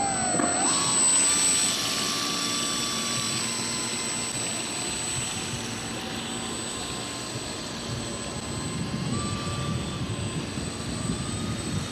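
Motor of a radio-controlled scale model of a Damen 3307 patrol boat running as the model cruises across the water, a steady whirring with its pitch shifting a few times.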